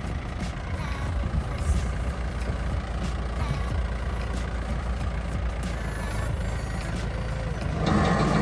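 Farm tractor running steadily with a low rumble; near the end the sound suddenly gets louder and fuller as the sprayer is switched on.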